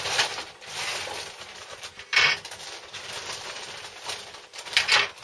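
Clear plastic kit bag rustling and crinkling as large plastic sprues are pulled out of it, with two louder crackles, about two seconds in and near the end.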